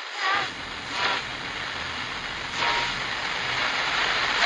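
Television static sound effect: a steady hiss of white noise that grows louder toward the end, with three short faint electronic blips in the first three seconds.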